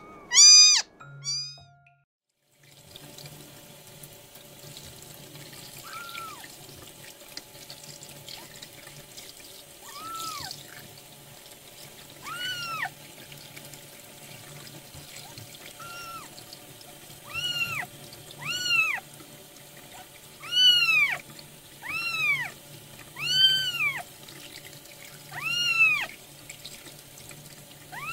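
Newborn kitten mewing repeatedly, each call rising and falling in pitch, the calls coming more often and louder in the second half, over the steady splash of warm water running from a tap as the kitten's rear is rinsed under it. Near the start there are two loud mews, then a brief silence.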